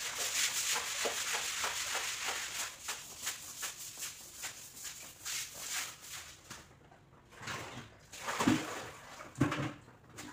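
Stick broom scrubbing a wet tiled floor and wall base in quick rasping strokes, stopping about six seconds in. A couple of short thuds follow near the end.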